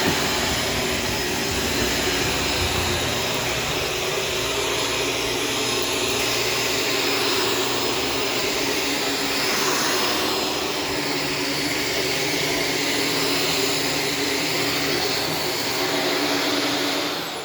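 Shark Stratos upright vacuum with self-cleaning brush roll running steadily, swelling a little as it is pushed back and forth. It starts to switch off just before the end.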